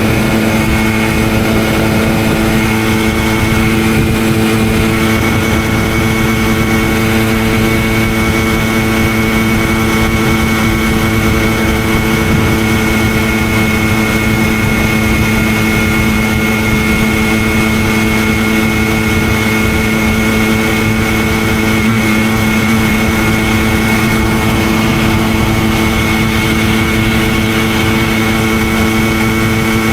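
Simson 50 cc single-cylinder two-stroke moped engine running under way, holding a steady engine speed with an unchanging pitch throughout.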